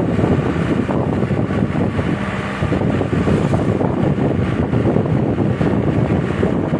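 A car driving on the road: steady engine and road noise.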